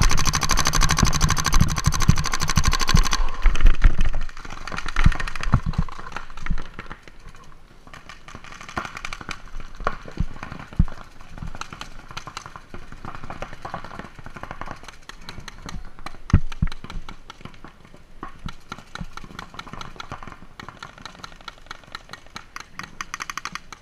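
Paintball markers firing across a speedball field: sharp pops, singly and in quick strings, throughout. A loud steady tone cuts off about three seconds in.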